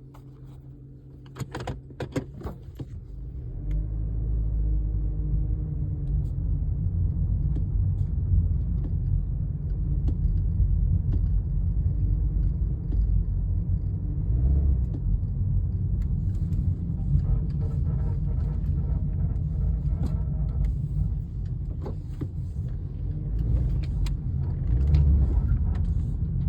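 A 2015 Honda Civic coupe driving, a steady low rumble building up after a few clicks and knocks at the start. A faint higher tone rides over the rumble for a few seconds past the middle. The owner reports a grinding sound from the car when turning.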